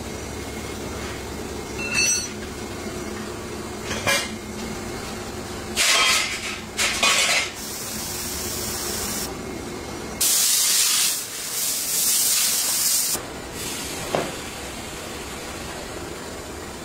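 Short bursts of compressed air hissing, with one longer blast of about three seconds near the middle. A few light metal clinks and a steady workshop machinery hum run underneath.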